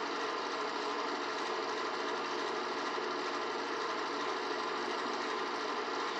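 Microwave oven running at a steady hum while heating a bowl of corn couscous on a one-minute setting.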